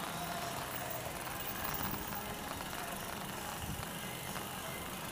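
Steady noise of riding a bicycle: wind rumble on the handlebar-mounted camera's microphone and the tyres rolling over the paved floor.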